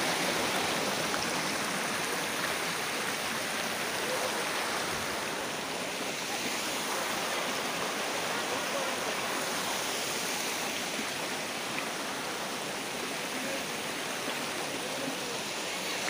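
Water rushing over boulders in a rocky stream just below a small waterfall: a steady, even rush.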